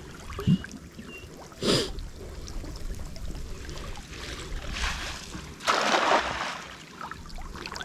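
Water splashing in shallow water: a short splash about two seconds in and a longer, louder splash about six seconds in.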